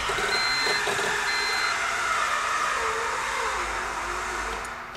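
Starter motor cranking a rebuilt Honda engine with its spark plugs out, an even whirring with no compression beats, slowing and fading in pitch and loudness as a weak battery runs down. A high electronic beep sounds twice near the start.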